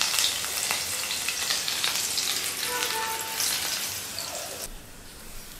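Green chillies deep-frying in hot oil in a perforated steel ladle in a steel kadhai: a steady sizzle full of small crackles that cuts off suddenly near the end.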